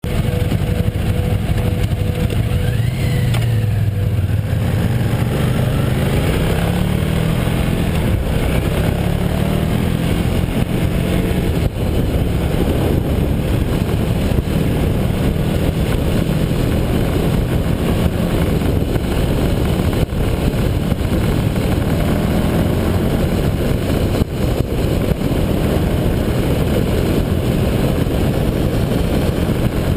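Motorcycle engine running at road speed, its revs climbing a few seconds in and then holding steady, under a constant rush of wind over the bike-mounted camera's microphone.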